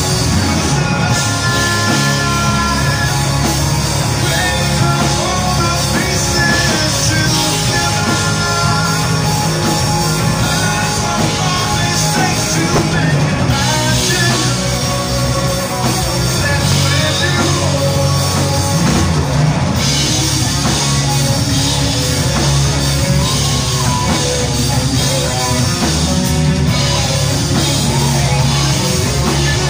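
Live rock band playing loud: electric guitars, bass and drum kit, with a male singer at the mic.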